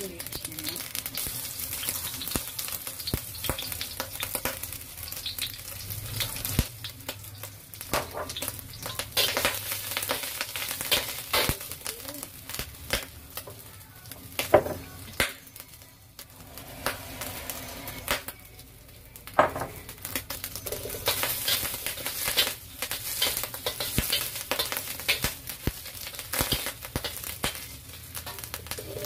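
Garlic and shredded dried food sizzling in a little oil in a stainless steel wok, stirred with a metal spatula that scrapes and clicks against the pan over and over. The sizzle eases for a few seconds past the middle, then picks up again.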